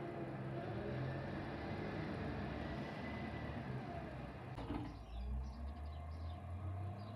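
Garbage truck driving past, its engine and tyre noise fading as it moves away. A single sharp knock comes about four and a half seconds in, followed by a quieter low hum and a few faint high chirps.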